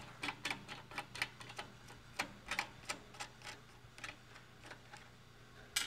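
Light metal clicks of a threaded tension rod being spun out of its square nut in a bandsaw's upper-wheel sliding bracket, irregular ticks about three a second that thin out, with one sharper click near the end.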